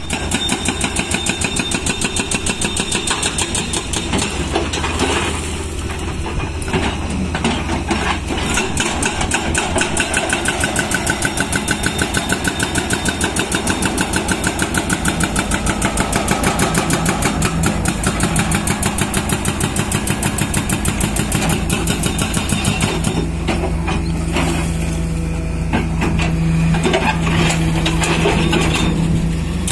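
Excavator-mounted hydraulic rock breaker hammering rock in rapid, even blows, several a second, over the excavator's diesel engine running.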